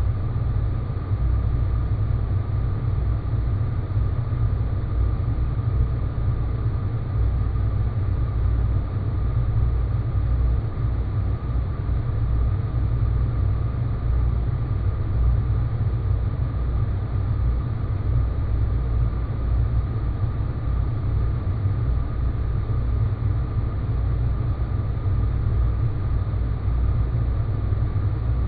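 Space-planet ambience: a steady, dense low rumble with a thin, faint high hum held over it, unchanging throughout.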